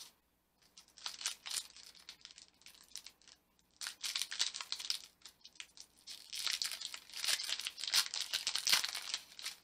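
A foil Pokémon trading card booster pack being crinkled and torn open by hand: irregular spells of crackling foil, loudest in the last three seconds.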